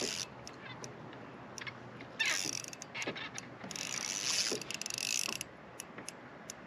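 Spinning reel working against a hooked fish: short bursts of ratcheting clicks and gear whirring as line is reeled in and pulled against the drag.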